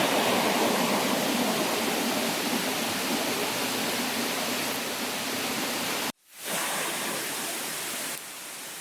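Rushing river water: a steady, even hiss of flowing water. It cuts off abruptly about six seconds in and comes back slightly quieter.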